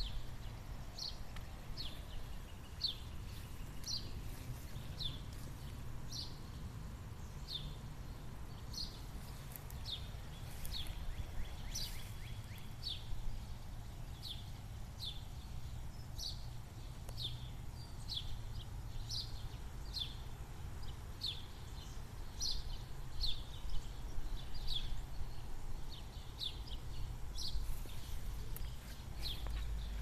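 A bird repeating a short falling chirp over and over, about one to two a second, over a low rumble of wind and handling noise on the microphone.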